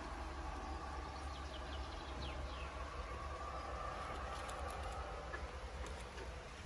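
Faint background ambience: a steady low hum, with a few short high chirps between one and three seconds in. Light clicks of plastic plant pots being handled come about four to five seconds in.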